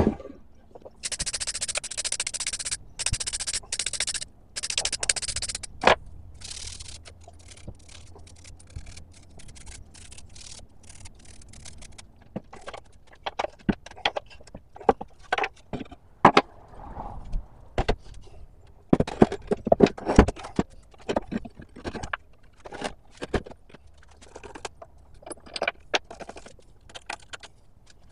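Cast-iron parts and hand tools of an old hand-crank drill press being handled on a wooden bench: a run of harsh scraping strokes in the first few seconds, then scattered metal clinks and knocks.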